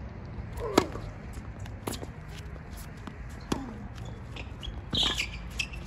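Tennis ball being hit with a racket and bouncing on a hard court during a rally: about four sharp pops spaced a second or more apart, the loudest about a second in, over a steady low background rumble. A brief high squeak comes about five seconds in.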